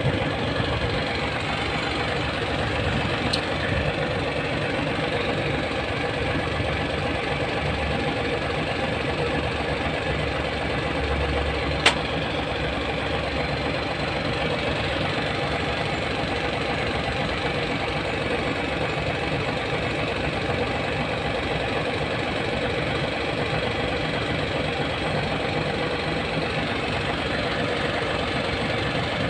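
Hino 700's E13C inline-six diesel engine idling steadily, with a single sharp click about twelve seconds in.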